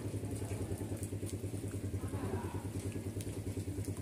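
A small engine running steadily at idle, with a low hum and a fast even pulse, over the light patter of rain on the pond.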